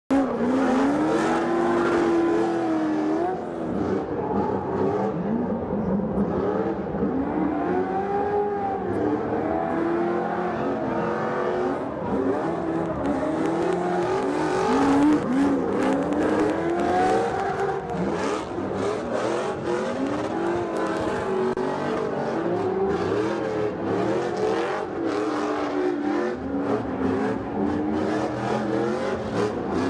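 Pro 2 off-road race trucks' V8 engines revving hard while drifting, the pitch climbing and dropping over and over, with tyre squeal.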